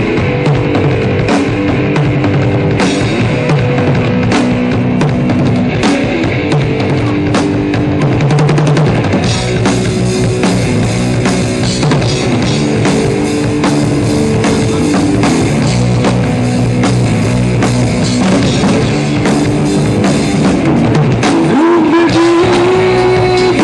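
Drum kit played in a rock groove with a band, steady strikes over held pitched notes from the other instruments; a gliding pitched line enters near the end.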